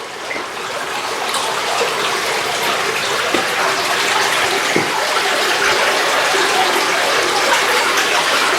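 Spring water pouring out of the ground into a brick-lined spring house: a steady rushing splash that echoes in the small chamber.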